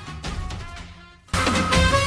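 Background music with a heavy bass beat that fades down, breaks off briefly just past halfway, then drops back in at full level.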